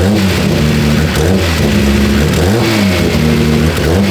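Turbocharged six-cylinder engine of the engine-swapped Honda S2000 idling, with a few short throttle blips that lift the revs and let them fall back. The largest blip comes about two and a half seconds in.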